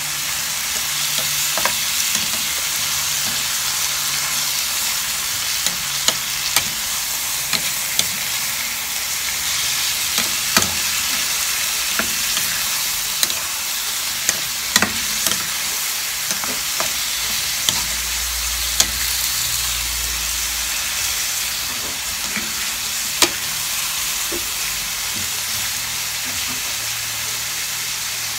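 Chicken pieces sizzling in a hot frying pan, a steady hiss, with a wooden spatula knocking and scraping against the pan now and then as they are stirred.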